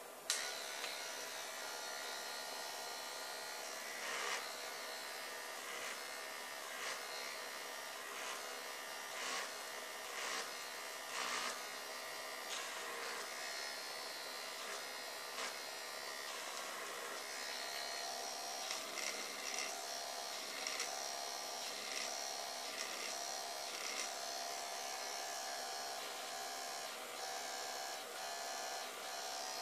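Battery-powered electric eraser running steadily with a small motor's whine. It makes short louder strokes over and over as the spinning eraser tip is drawn across airbrushed card, lifting paint in fine hair-like lines.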